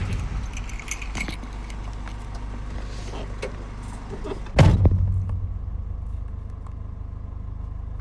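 Mercedes-Benz Sprinter 315 CDI four-cylinder diesel being started: keys jangle and rattle, then a little past halfway the engine catches with a loud burst and settles into a steady idle.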